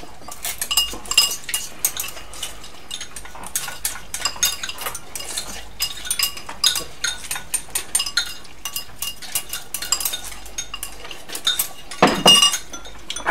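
Chopsticks clicking and scraping against bowls, with noodles being slurped, as several people eat fast. There is a louder rush of sound near the end.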